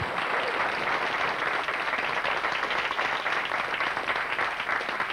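Studio audience applauding, a steady patter of many hands clapping that starts right away and fades off near the end.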